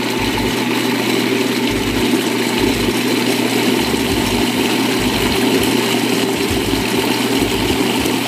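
Food processor motor running steadily, blending a thick yogurt-and-spice marinade into a paste.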